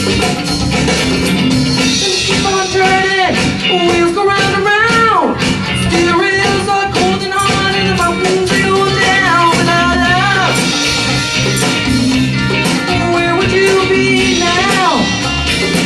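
Rock music with a steady beat and guitar, carrying a melodic lead line that bends and slides in pitch.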